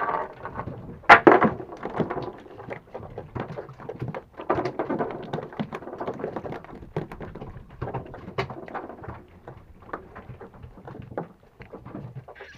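Irregular knocks, taps and slaps on a small fishing boat's hull and deck, with one louder knock about a second in.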